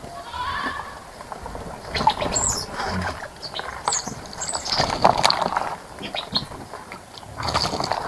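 Small birds bathing in a shallow bird bath: irregular bursts of splashing water, with a few brief high chirps in between.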